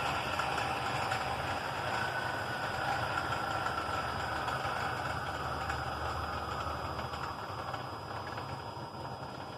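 A motor running steadily, its whine slowly falling in pitch and fading a little.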